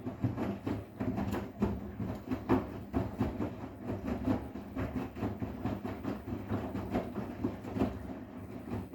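Arçelik 10121 front-loading washing machine in its wash cycle, the drum turning a sofa cover through the water: a low rumble with irregular knocks and swishes as the load tumbles.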